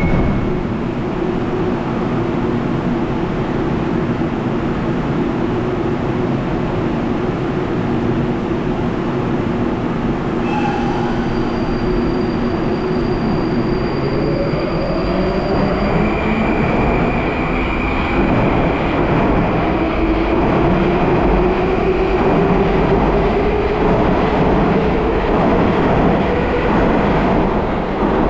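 Baltiets metro train pulling out of the station: a steady electrical hum at first, then its motors' whine rising steadily in pitch over the rumble as it accelerates along the platform.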